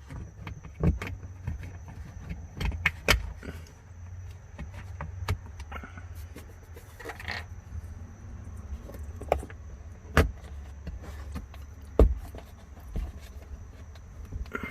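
Plastic trim clips being pressed back into a car's trunk liner: scattered clicks and knocks, the sharpest about ten and twelve seconds in, over a steady low hum.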